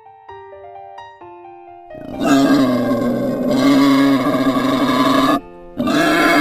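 Soft keyboard notes, then two long, loud calls from a wild boar: the first starts about two seconds in and lasts about three seconds, and after a short gap the second begins near the end.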